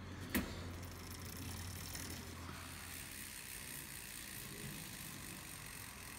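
Mountain bike rear wheel spinning freely on its hub with a steady whir, a tissue rubbing on the brake disc as it is wiped clean of grease. A single sharp click about half a second in.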